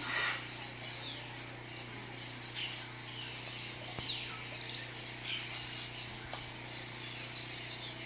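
Rainforest ambience: several birds giving scattered short, falling chirps and whistles over a steady background of insects, with a constant low hum underneath.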